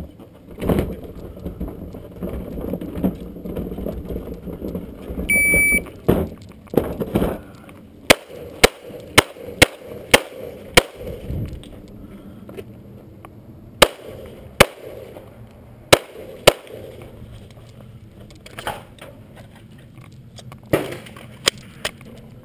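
Wheeled plastic garbage can rumbling over gravel, then a shot timer's beep about five seconds in. About three seconds later come ten loud pistol shots from a Glock 21 in .45 ACP: six in quick succession, then four more after a short pause, with a few fainter cracks near the end.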